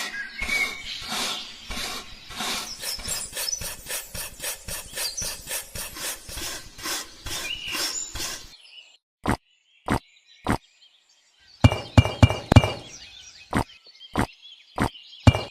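Rapid, regular tapping and scraping, about four strokes a second, that stops after about eight seconds; then a few single sharp knocks, and a short run of knocks with a ringing tone near the end.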